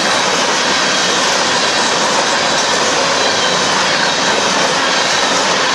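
Covered hopper cars of a Union Pacific freight train rolling past close by: a loud, steady roar of steel wheels on the rails.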